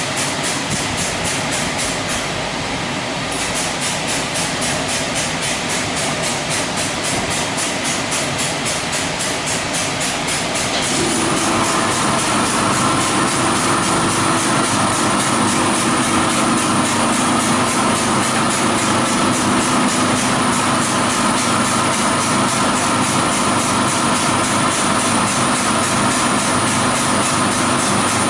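WashTec SoftWash rollover car wash running: a steady hiss of water spray and pumps with a fast, even pulsing. About eleven seconds in it gets a little louder, and a steady machine whine of several tones joins it.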